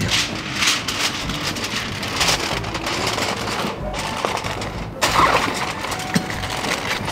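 Aluminium foil crinkling and rustling in irregular bursts as it is folded and crimped tightly around a rack of pork ribs on a metal sheet pan, wrapping the ribs for the rest of the cook. The loudest crackle comes about five seconds in, with faint music underneath.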